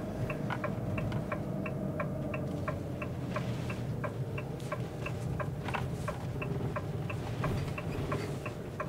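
Vehicle turn-signal indicator ticking steadily, about three clicks a second, over the low hum of the motorhome's engine.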